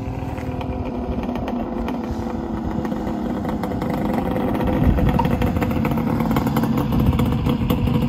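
Suzuki GT380's air-cooled two-stroke three-cylinder engine running at a steady idle, getting gradually louder.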